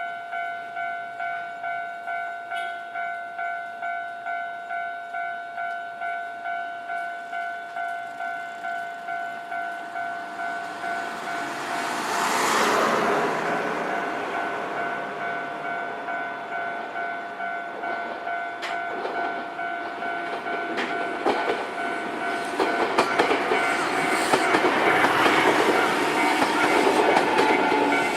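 Japanese railway level-crossing warning bell ringing steadily, a two-tone ding about twice a second. About halfway a brief loud rushing burst sounds, and over the last third a Nankai electric train passes over the crossing, growing louder, its wheels clacking over the rail joints while the bell keeps ringing.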